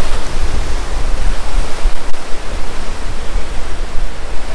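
Wind rumbling and buffeting on the microphone over the steady wash of sea surf breaking against rocky cliffs.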